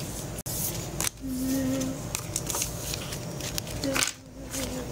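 Indistinct, muffled voices with rustling and handling noise.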